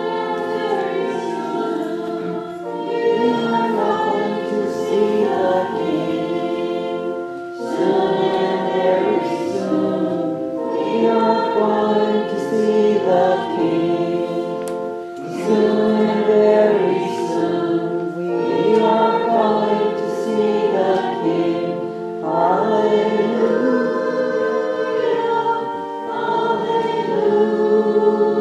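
A choir singing a slow hymn in held chords, its phrases breaking every three to four seconds.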